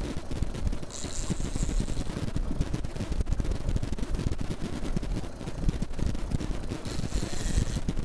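Strong wind buffeting the microphone in a steady, crackling rumble, over rough water around an open fishing boat. Twice there is a brief higher hiss, about a second in and near the end.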